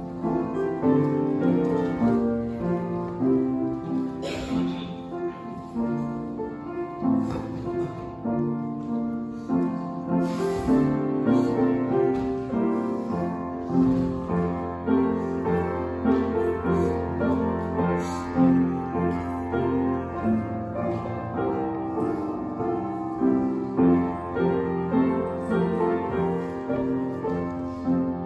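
Upright piano being played: a melody over chords, with notes moving steadily throughout.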